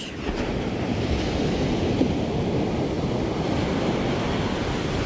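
Ocean surf breaking and washing up the beach, a steady rushing wash, with wind buffeting the microphone.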